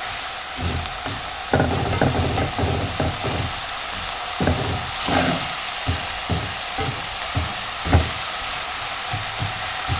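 Diced onions and garlic sautéing in olive oil in a nonstick frying pan: a steady sizzle, with a spatula scraping and knocking against the pan at irregular moments as they are stirred, the sharpest knock about eight seconds in.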